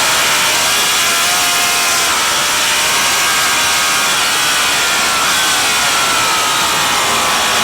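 Racing motorcycle engine running hard, its pitch rising and easing a little as the throttle changes, over a steady rush of noise.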